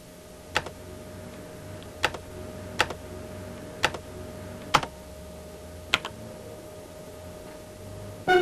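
Steady low electrical hum with a thin high tone, broken by six sharp, irregularly spaced clicks, like recording noise in a blank gap on a videotape.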